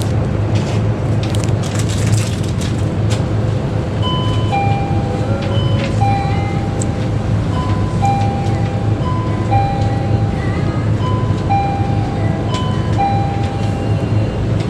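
A simple electronic chime alternating between two notes over and over, starting about four seconds in and stopping near the end, over a steady low hum.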